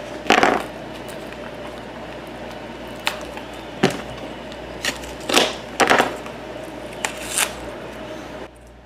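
A small cardboard box being handled and opened: several short, scattered rustles and crinkles, the loudest near the start, over a steady faint hum.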